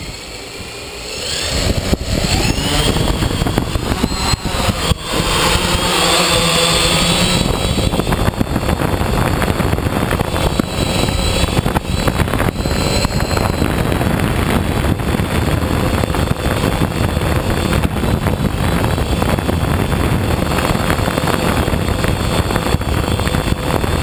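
Octocopter's electric motors and propellers spinning up for takeoff, a rising whine building over the first couple of seconds, then running steadily loud in flight. Heard from the onboard camera, with a heavy rush of air over the microphone.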